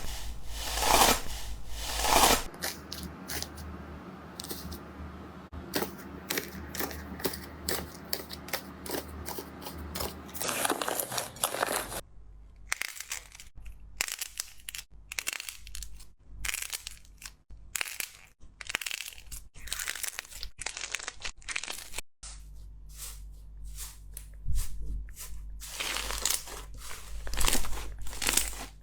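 Slime being squeezed, poked and pressed by hand: a dense run of sticky clicks, pops and crunchy crackles. The texture changes abruptly a few times from one clip to the next.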